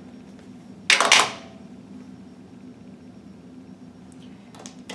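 A small plastic glue container set down on a hard table: one short clatter about a second in, then a low steady room hum with a few soft taps near the end.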